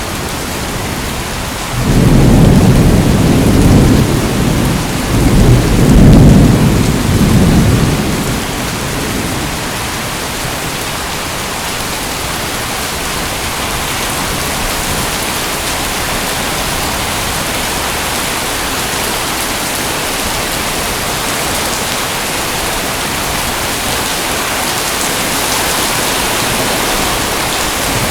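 Steady heavy rain, joined about two seconds in by a rolling rumble of thunder that swells twice and fades out after about seven seconds, leaving the rain alone.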